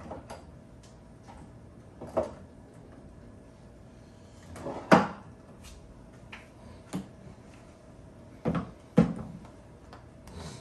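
Spice containers being taken from a kitchen cupboard and handled: a handful of separate knocks and clicks, the loudest about five seconds in and two close together near the end.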